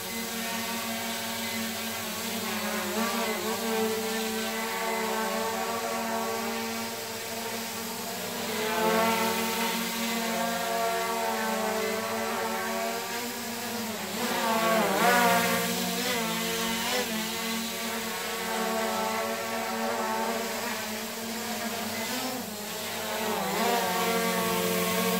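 Small quadcopter drone's propellers buzzing in flight: a steady whirring hum whose pitch swerves up and down several times as the drone manoeuvres.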